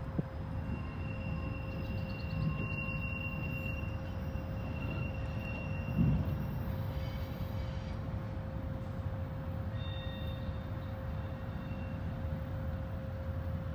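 Freight train with a diesel locomotive approaching from a distance: a steady low rumble, with a brief low thump about six seconds in.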